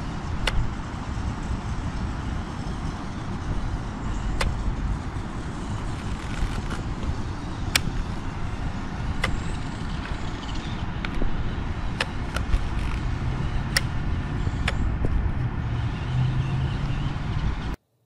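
Small dual electric motors of a 1/20-scale RC rock-crawler truck running as it drives over grass: a steady whirring rush with occasional sharp clicks. Ends abruptly.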